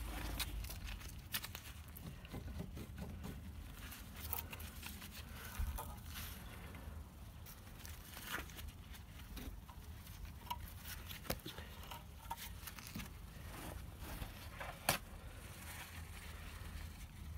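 Scattered light clicks and knocks of hand work on a car's front brake hub and disc, with some rustling, over a low steady rumble; two sharper knocks stand out, about six seconds in and near the end.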